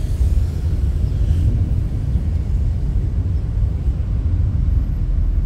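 Steady low rumble of a car on the move: road and engine noise heard from inside the cabin.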